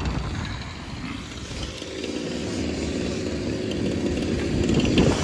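Small two-stroke gas engine of a 1/5-scale RC car running, getting steadily louder over the seconds.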